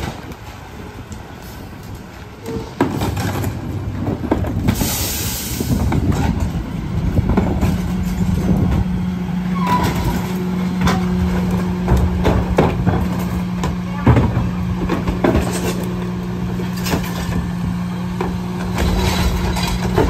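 Rear-loading garbage truck at a pickup stop: a short hiss of air about five seconds in, then the engine holds a steady raised speed from about seven seconds on, driving the packer hydraulics, while trash carts bang against the hopper in repeated knocks.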